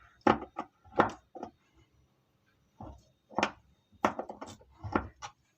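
Irregular sharp knocks and clicks, a dozen or so in small clusters with short pauses, from tools and washing machine parts being handled and fitted back together.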